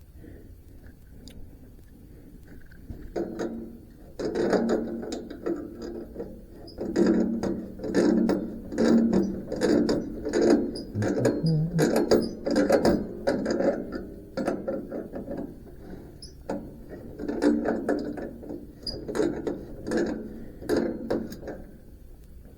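Metal parts of a bandsaw mill worked by hand, giving short repeated runs of clicking, ratcheting strokes, about two a second. The runs start about three seconds in and die away near the end.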